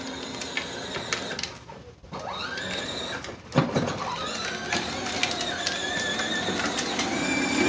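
Power Wheels Mustang ride-on toy car's electric drive motors and gearbox whining as it drives. The whine dies away near 2 s, then winds back up in pitch as the car pulls off again, with a single knock about a second and a half later.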